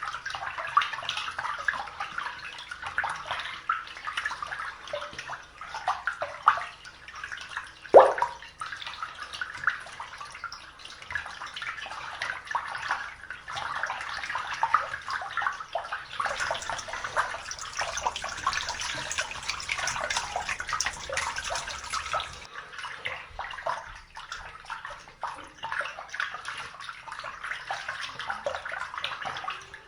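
Water running and splashing, like a tap filling a tub, with one sharp knock about eight seconds in; the water sounds brighter and hissier for several seconds in the middle.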